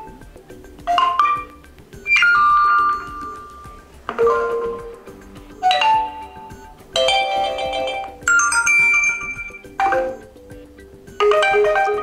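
Realme X50 Pro 5G phone speaker playing its built-in alert tones one after another: short chimes and mallet-like jingles, about eight in all, each cut off after a second or two when the next tone is tapped.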